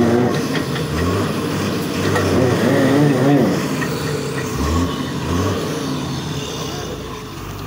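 Truck engine running, revving up and down a few times, loudest about three seconds in.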